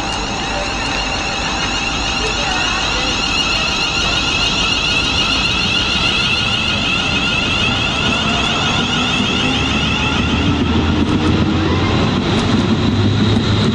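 Electric train at a platform, running with a steady high whine over a noisy rumble; a lower hum comes in and grows louder about ten seconds in.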